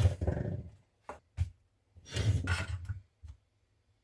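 Small pressed-steel toy truck parts being handled and set down: a string of short metallic knocks and scrapes with brief pauses between them.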